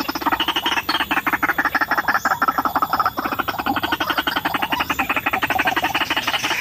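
White-breasted waterhen calling: a fast, even run of harsh croaking notes, about ten a second, going on without a break.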